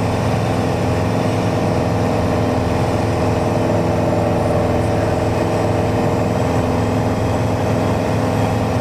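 Single-engine Mooney's piston engine and propeller droning steadily in flight, heard from inside the cabin.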